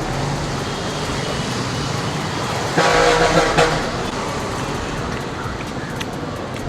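Road traffic noise with a vehicle horn honking for just under a second, about three seconds in.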